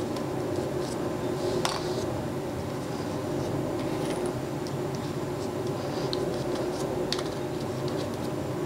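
Steady low room hum with a few faint clicks and rubbing sounds of playing cards being handled and slid on a cloth playmat, one clearer tap about two seconds in.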